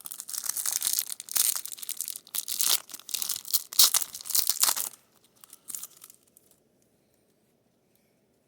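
A trading-card booster pack wrapper being torn open and crinkled: dense crackling and tearing for about five seconds, then a few faint rustles before it goes quiet.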